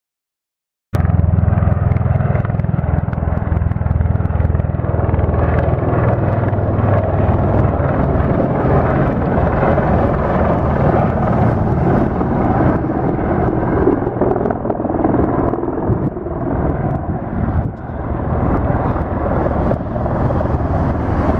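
Bell Boeing MV-22 Osprey tiltrotor in helicopter mode, its twin proprotors giving a heavy, rapid rotor chop over turbine noise. It comes in abruptly about a second in, is steady and loud, and dips briefly near the end.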